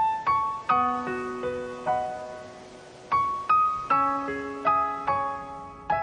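Background music: a piano playing a slow, gentle melody in separate struck notes and chords, each note fading away.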